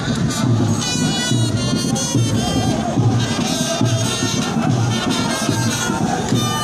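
Music with a steady, evenly repeating low beat and melodic lines over it.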